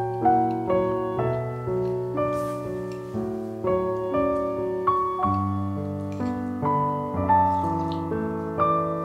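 Background piano music: single notes struck about twice a second, each dying away, over held lower chords.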